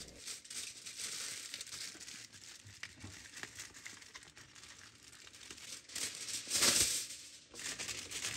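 Aluminium foil being crumpled and pressed by hand: a crinkling of many small crackles, louder for a moment about two-thirds of the way through.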